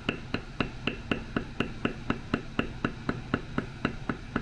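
Metal leather-beveler stamp struck by a mallet in quick, even taps, about four a second, each with a short metallic ring, as the tool is walked around the outline of an acorn design in tooling leather to bevel it down.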